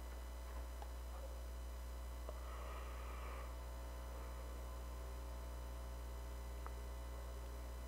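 Steady low electrical mains hum. A brief faint rustle comes about two and a half seconds in, and a couple of faint light ticks follow.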